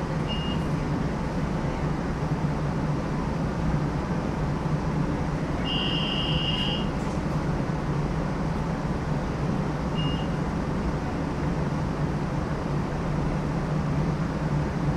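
New Orleans Canal Street streetcar running, heard from on board: a steady low rumble of motors and wheels on the rails. A single high electronic beep lasting about a second sounds around the middle, with a couple of brief high chirps near the start and about ten seconds in.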